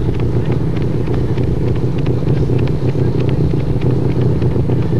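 Motor vehicle engines running steadily in a low drone, with faint light clicks over it several times a second.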